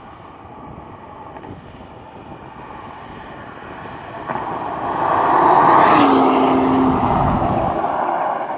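2012 Ford Falcon XR6 Turbo Limited Edition, a turbocharged straight-six, driving past at about 100 km/h with engine and tyre noise. It grows louder as it approaches, is loudest about five to six seconds in as it passes, and drops in pitch as it moves away.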